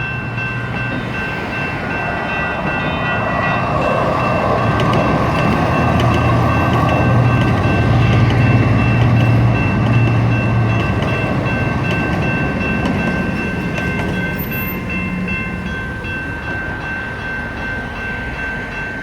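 Siemens U2A light rail train passing over a grade crossing, its running noise and low motor hum building to a peak about halfway through and then fading. Electronic crossing bells ring steadily throughout.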